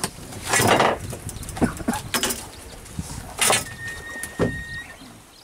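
Handling noise in a small fibreglass boat: about five irregular scrapes and knocks as a long catching pole is worked against the gunwale. A thin steady whistle-like tone lasts about a second near the end.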